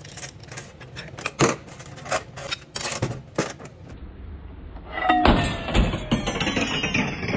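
Metal parts of a 700R4 automatic transmission clinking and clattering as they are handled on the bench. A few light knocks come first, then a louder, busier run of clatter from about five seconds in.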